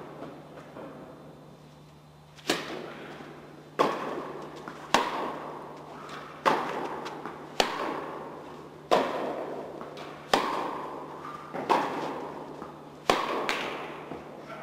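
Tennis rally: rackets striking the ball back and forth, about nine sharp pops roughly a second and a half apart starting a couple of seconds in, each ringing on in the echoing indoor tennis hall.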